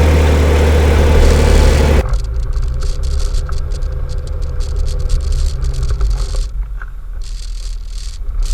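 A vehicle engine running loudly with a steady low drone and hiss, which cuts off suddenly about two seconds in to a quieter, lower engine rumble with scattered rattles and clicks.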